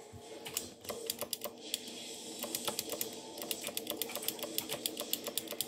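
Keys of a Redragon computer keyboard being pressed in quick, irregular clicks, a few at first and then a dense run of keystrokes from about halfway in.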